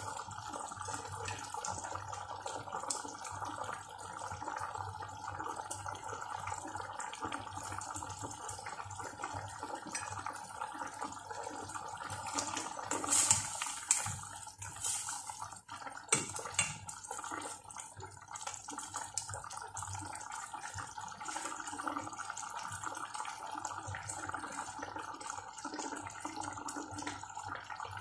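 Chicken in coconut milk simmering in a metal pot, with steady bubbling over a constant background hum. Between about 13 and 17 seconds in, a spatula stirring the pot gives a few loud scrapes and knocks against the metal.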